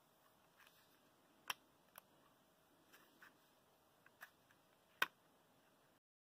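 Light clicks and taps of adhesive stencil vinyl being picked and peeled off foam board with a pointed pen-style tool. The two sharpest clicks come about a second and a half in and about five seconds in. The sound drops to dead silence just before the end.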